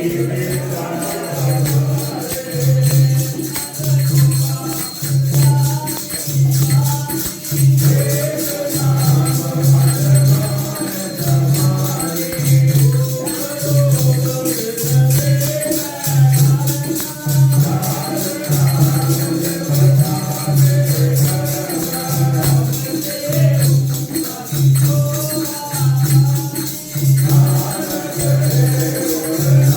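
Sikh devotional kirtan music: a melody over a steady low drum beat, a little over one beat a second, with jingling percussion.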